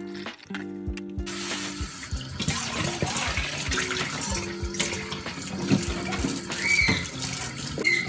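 Kitchen tap running into a stainless steel bowl in the sink; the splashing turns loud about a second in as the bowl is rinsed. Background music plays throughout.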